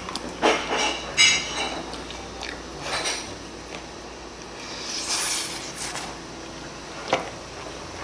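Chewy jjolmyeon noodles being slurped and chewed, with a few clinks of a metal fork against the dish; a sharp clink about seven seconds in.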